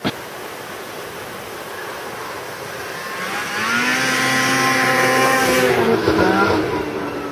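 Snowmobile engine approaching and passing close by, growing louder to a peak about five to six seconds in, its pitch dropping as it goes past.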